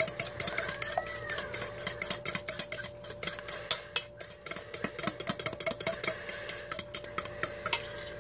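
A metal spoon stirring thick barbecue sauce in a stainless steel mixing bowl: a quick, irregular run of clinks and scrapes of spoon on bowl that stops near the end.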